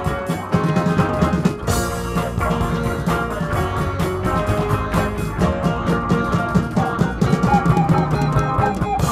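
A live student ensemble plays an instrumental Indian-Western fusion piece on electric guitars, keyboards and tabla at a fast, steady beat.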